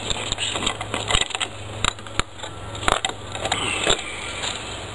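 Rustling and irregular light clicks as an upside-down tomato planter's wire hanger is handled and worked onto a metal hook.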